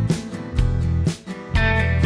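Background music: guitar-led country-style track with a steady strummed beat.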